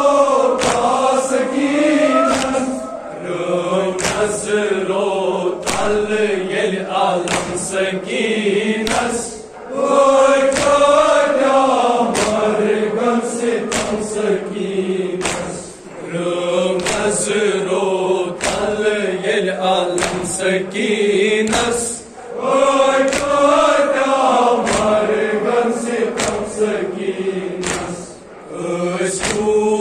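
A group of voices chanting a Kashmiri noha, a Muharram lament, in unison, in phrases about six seconds long with short breaks between. Sharp slaps land at roughly one a second over the chant, the rhythmic beating of chests (matam) that goes with a noha.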